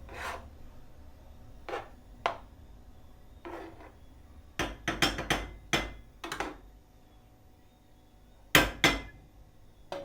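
Kitchenware clattering as pots, dishes and utensils are knocked and set down: a series of separate knocks and clinks, with a quick run of them just before the middle and two loud knocks near the end.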